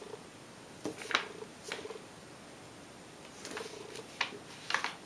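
A sheet of origami paper being folded in half and creased by hand: a few short crisp rustles and rubbing strokes as fingers press and slide along the fold, about a second in and again near the end.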